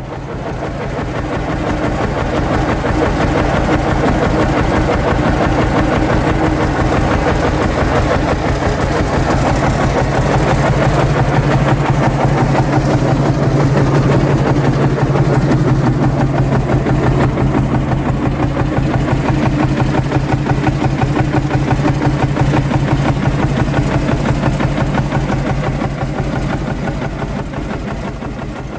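Field Marshall Series 2 tractor's 6-litre single-cylinder two-stroke diesel running steadily with a rapid, even beat of firing pulses. It fades in at the start and fades out near the end.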